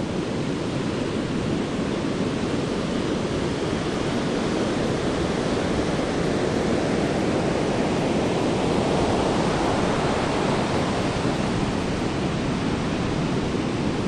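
Ocean surf washing onto the beach, a steady rushing noise that swells a little partway through.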